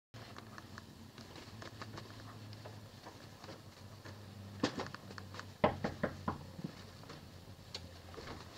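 Quiet room tone with a steady low hum, broken about halfway through by a few sharp knocks and clicks in quick succession.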